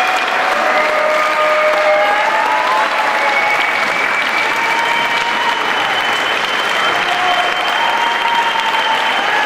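Audience applauding steadily through the whole stretch, with long drawn-out held tones riding above the clapping.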